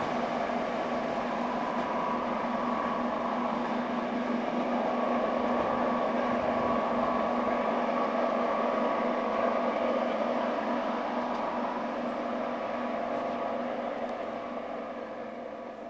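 Class 55 Deltic locomotive D9000's twin Napier Deltic two-stroke diesel engines working hard up a steep gradient as the train draws away. A steady drone that fades over the last few seconds.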